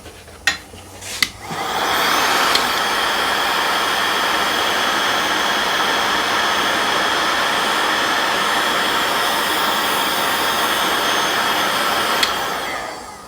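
Electric heat gun blowing steadily for about ten seconds, a rush of air with a steady whine, shrinking heat-shrink tubing over soldered wire joints. A couple of clicks come just before it starts, and it winds down near the end.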